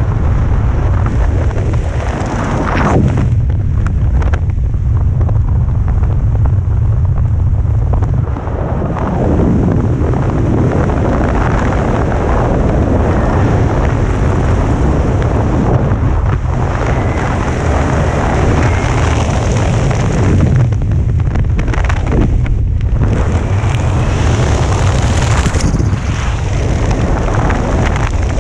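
Wind buffeting a camera microphone during a parachute descent under an open canopy: a loud, steady rush, heaviest in the deep low end, easing briefly a few times.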